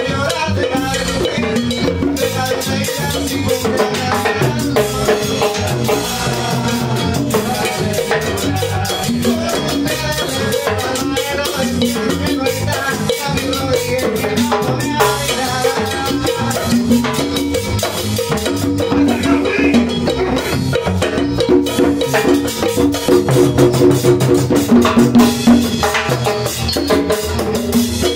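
A live tropical cumbia band rehearsing, with electric bass, electric guitar and hand percussion playing an instrumental passage. It gets louder near the end.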